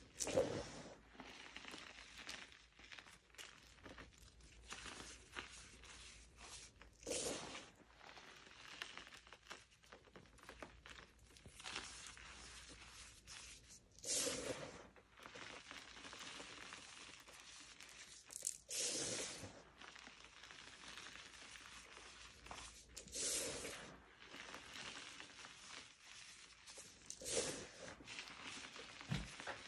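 Dyed gym chalk powder and crumbled pasted chalk being crushed and swept by hand: a soft, gritty crunching and rustling, with a louder swish every few seconds.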